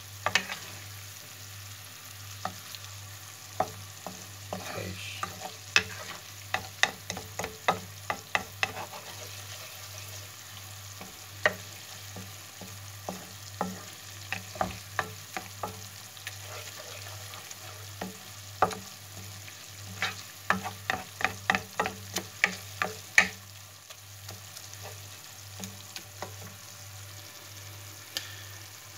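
Chopped chili sauce sizzling in oil in a frying pan while a wooden spatula stirs it. The spatula knocks against the pan in quick clusters of sharp taps over a steady sizzle.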